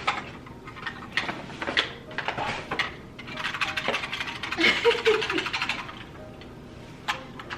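Handling noise from a bag being searched by touch: rustling and crinkling with scattered clicks and taps. The rustling grows denser and loudest around the middle.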